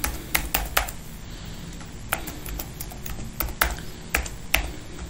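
Computer keyboard being typed on: about ten sharp key clicks in uneven bursts, a few quick presses near the start and more spread through the middle and later part.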